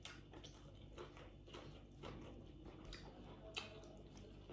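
Near silence with faint, scattered small clicks and crunches from eating deep-fried fish bones by hand; one click about three and a half seconds in is a little louder.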